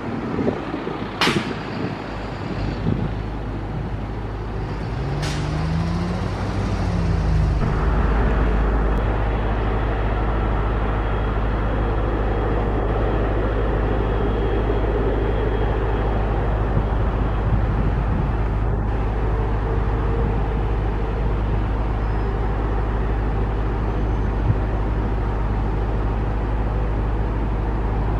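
Jet engines of airliners on final approach, a steady low rumble, with two sharp clicks in the first few seconds.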